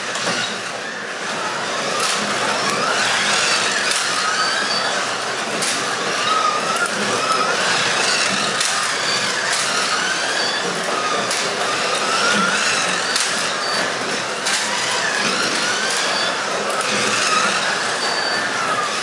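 Carrera Digital 1/24 Ferrari P4 slot cars racing round a plastic track. Their small electric motors whine, rising and falling in pitch as the cars speed up and brake, over a steady rolling rattle with scattered clicks.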